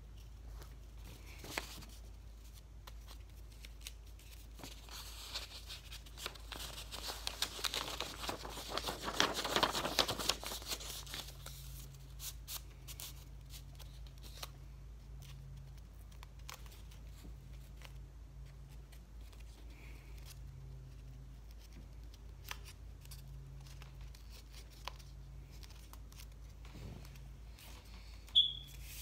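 Stiff construction paper rustling and crinkling as it is rolled into a tight tube by hand, loudest from about five to eleven seconds in, with scattered small clicks and taps of handling. A brief high-pitched chirp sounds near the end.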